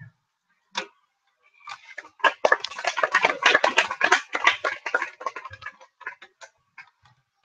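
Computer keyboard being typed on: a single click about a second in, then a dense run of rapid key clicks lasting about five seconds.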